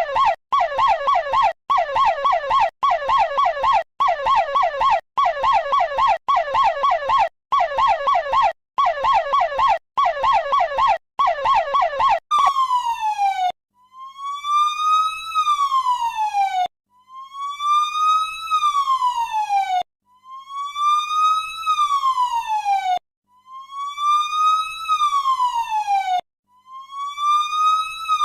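Electronic emergency siren in two patterns: first a fast warble cut into short repeated bursts, then, about 12 seconds in, a slow wail that climbs for about two seconds and drops quickly, repeating roughly every three seconds.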